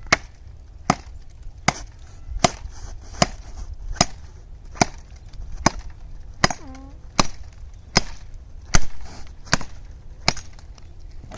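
Gerber Gator Machete Jr. chopping with steady, even strokes, about fourteen blows at a little more than one a second.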